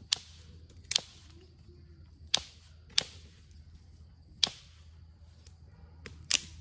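Onondaga chert being struck, six sharp ringing cracks of stone on stone about a second apart, as the piece is tested and broken open.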